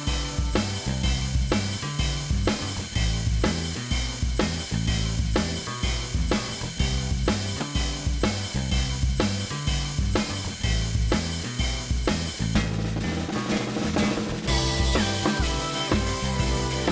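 Background music with a steady drum-kit beat and a bass line; the drums drop back briefly about two-thirds of the way through.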